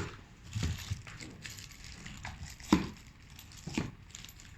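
Small metal welding sockets being handled and set down: four separate knocks and clinks, the loudest at the start and just before three seconds in.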